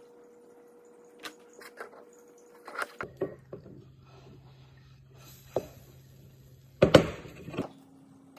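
Silicone spatula tapping and scraping against a nonstick frying pan in a few light knocks, then a louder clatter about seven seconds in as a pancake is flipped and lands back in the pan.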